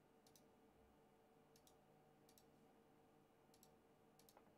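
Near silence with a few faint computer mouse clicks, spread out one at a time.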